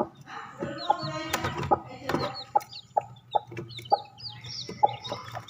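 Domestic hen clucking in short, repeated calls a few tenths of a second apart, with many short high peeps over them.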